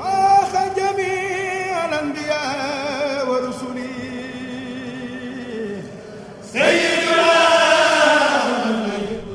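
A chanted vocal sung in long, wavering held notes that slide from pitch to pitch. It fades lower partway through, then a new loud phrase comes in about two-thirds of the way through.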